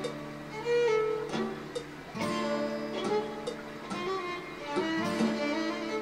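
Instrumental music in a traditional Chinese style: a bowed string melody sliding between notes over plucked strings.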